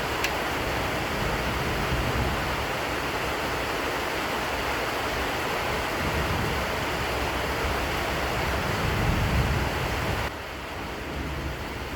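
Steady rushing noise with no clear pitch, which drops suddenly near the end to a quieter hiss.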